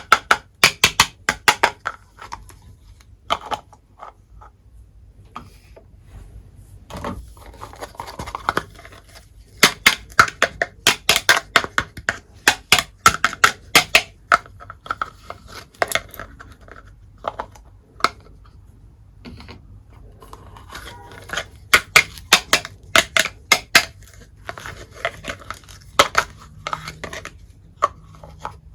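Quick runs of sharp clicks and taps: small hard miniature toy kitchen pieces being handled, knocked together and set down.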